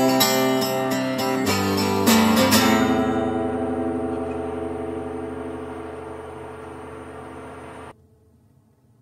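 Acoustic guitar strumming its last few chords, then the final chord left to ring and slowly die away for about five seconds before the sound cuts off abruptly near the end.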